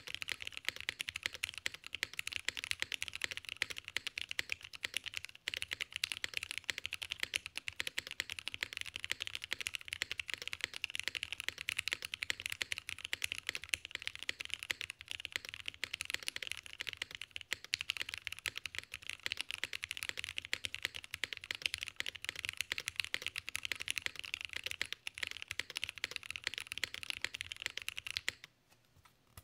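Fast, continuous typing on a custom Velvet Pro mechanical keyboard: lubed and filmed Nixie switches in a nylon plate with no foam, under GMK Yuru keycaps, giving a dense clatter of keystrokes that sounds full and hefty. The typing stops about a second before the end, with one last stray click.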